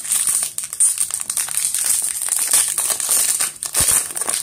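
Foil Pokémon booster pack wrapper crinkling in the hands as it is torn open, a dense run of quick crackles.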